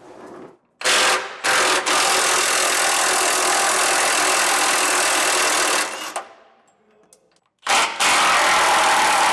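Milwaukee cordless impact wrench running on the 15/16 nuts of a trailer's Torflex axle mounting bolts, removing the hardware. It runs in runs: a short one about a second in, a longer one of about four seconds, then another near the end.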